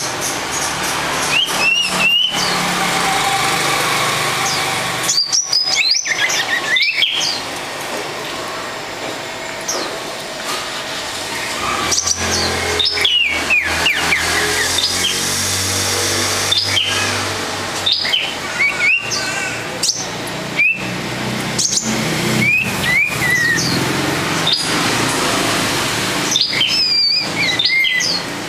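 Caged songbird singing short whistled chirps, many of them gliding up or down in pitch, repeated in loose phrases throughout. Sharp clicks and knocks come in between, clustered about two seconds in, around five to seven seconds in and again near the end.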